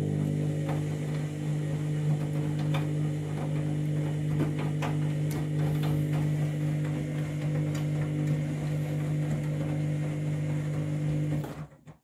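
Washing machine drain pump running at the end of the main wash, a steady low hum at one fixed pitch with scattered small clicks and splashes of water. It cuts off abruptly near the end.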